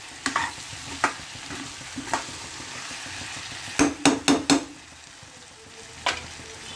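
Steel ladle stirring vegetables in a kadhai, clinking and scraping against the pan, with a quick run of about five knocks about four seconds in, over a steady sizzle of the vegetables frying in tomato masala.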